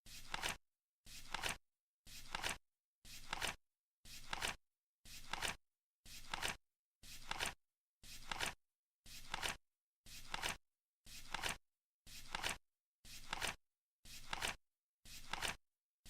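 Flip clock ticking sound effect: one short flap flip every second, each a brief rustling swell that ends sharply, with silence in between.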